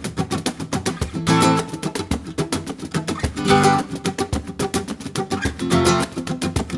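Background music: an acoustic guitar played with fast, even strumming, with a heavier accented chord about every two seconds.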